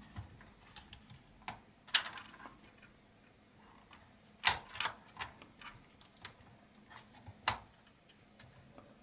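Scattered light clicks and taps of plastic as fingers work a display cable and its connector into the socket in the base of a Fujitsu Siemens Amilo Pro V3515 laptop, a handful at uneven intervals, the sharpest about two seconds in, near halfway and near the end.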